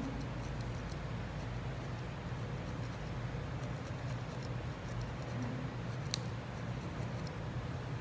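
Felting needle stabbing repeatedly into wool on a felting pad: a run of faint, short clicks, one a little sharper about six seconds in, over a steady low hum.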